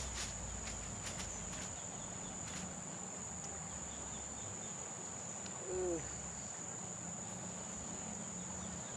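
Insects giving one steady high-pitched drone over a low steady rumble, with a brief sound of wavering pitch about six seconds in.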